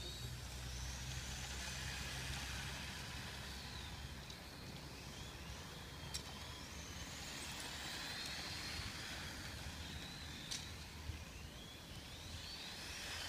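Small radio-controlled formula cars lapping a track, their electric motors making a high whine that rises and falls in pitch as they accelerate and brake, over a low steady rumble. A couple of sharp clicks stand out about six and ten seconds in.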